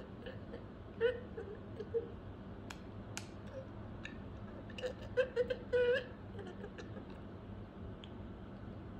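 Budgerigar chattering with its head inside a stainless-steel water bottle: a few short, low, pitched bursts of talk-like warbling, about a second in and again around five to six seconds in, with small clicks between.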